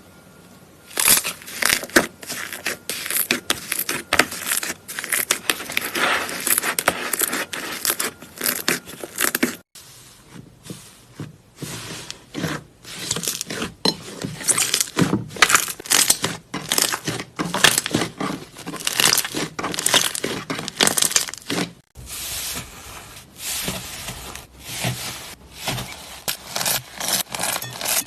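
Slime being squeezed and poked by hand, making dense crackling with many sharp popping clicks. The sound breaks off abruptly twice and starts again, as at cuts between clips.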